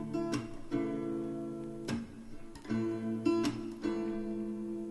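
Background music: an acoustic guitar strumming chords, a new strum every second or so, between the sung lines of a pop song.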